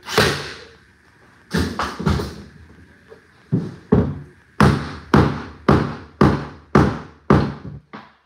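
Hammer and mallet blows on hardwood floorboards, tapping replacement pieces into place. One sharp blow, a quick group of three, then a steady run of about nine blows, roughly two a second.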